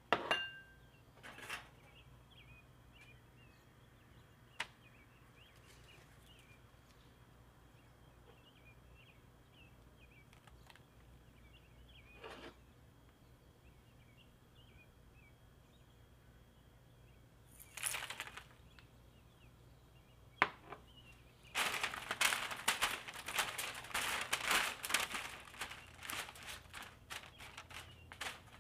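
Parchment paper crinkling and rustling for several seconds as a gloved hand spreads sliced onions, garlic and whole spices over it. Before that come a few light taps and a brief rustle as the ingredients are dropped onto the paper.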